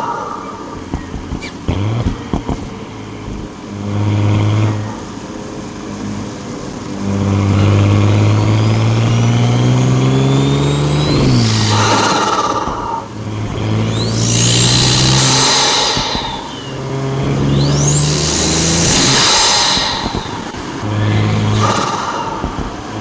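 Tuned Audi SQ5 engine and exhaust running and revving up and down, with a few sharp pops about two seconds in. High turbo whistles rise and fall several times in the second half, alongside loud whooshing bursts as the revs climb.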